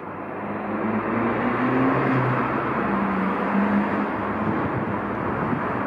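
Freight train hauled by a JR Freight EF210 electric locomotive rolling through the yard: a steady rumble of wheels on rail that swells over the first second or so, with a low motor hum that rises slightly in pitch.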